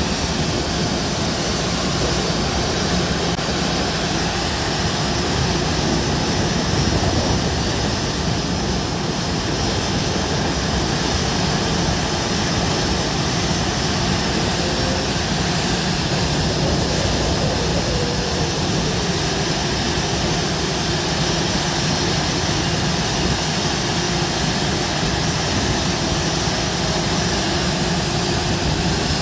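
Rolls-Royce turbofan jet engine running steadily during a ground run: an even, unbroken rush of noise with a low hum beneath it.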